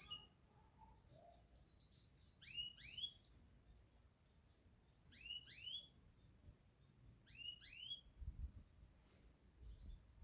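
Yorkshire canary singing faintly: three short phrases of two or three quick rising chirps each, a couple of seconds apart.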